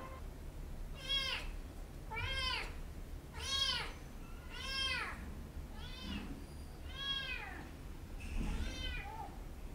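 Two-month-old kitten meowing over and over: about seven short, high calls roughly a second apart, each rising and then falling in pitch.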